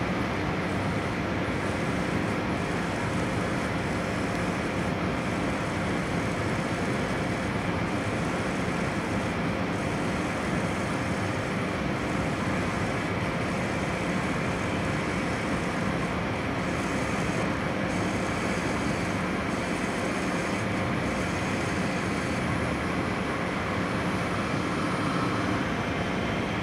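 Metal lathe running and turning a metal workpiece as the tool bit cuts along it, throwing off chips: a steady mechanical drone at an even level, with faint steady tones.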